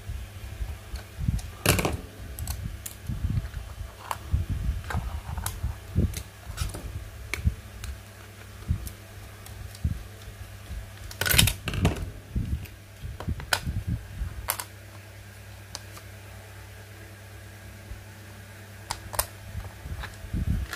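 Small screwdriver turning the screw under a plastic display base to free a diecast model car, with scattered clicks and knocks of the plastic base and car being handled; two knocks, about two seconds in and near the middle, are the loudest. A fan hums steadily underneath.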